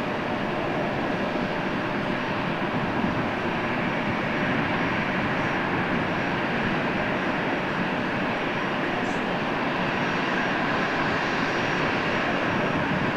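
Jet engines of a FedEx Boeing 777F, its GE90 turbofans, running steadily with an even roar and a faint steady whine above it.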